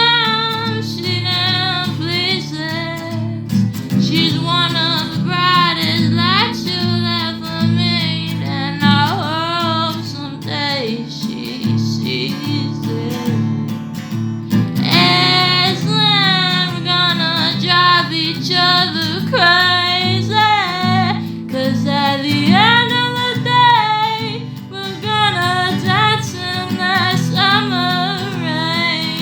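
A female voice singing a melody over acoustic guitar accompaniment.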